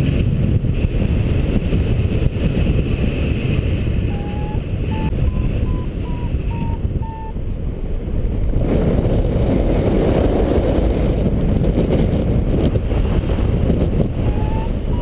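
Wind rushing over the microphone in flight under a paraglider, with a variometer beeping in a run of short tones whose pitch steps up, about four to seven seconds in and again near the end: the climb tone that signals rising air.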